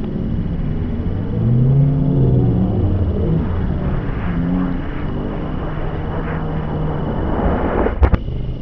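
Fireworks played backwards at quarter speed: a low, steady rumble with slow wavering pitches gliding up and down, then, near the end, a swell of noise that ends abruptly in a sharp crack, a bang heard in reverse.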